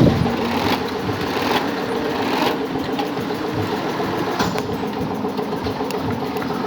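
Sewing machine running steadily while it stitches the top edge of a bag, with a few faint clicks.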